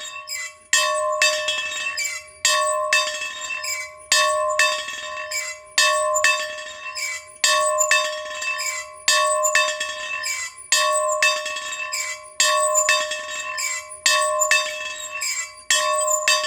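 A bell ringing over and over, with a loud stroke about every one and a half seconds and a lighter stroke between them, each stroke ringing on.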